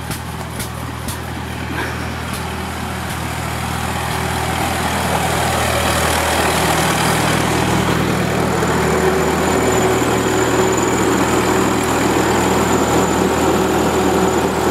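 Wisconsin-engined Winco generator, a 1943 WWII anti-aircraft gun generator, running steadily under load with an even engine note, which becomes louder over the first several seconds and then holds steady. A few faint ticks are heard in the first couple of seconds.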